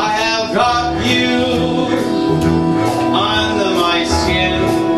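A man singing into a handheld microphone over amplified backing music, his voice gliding through held and bending notes.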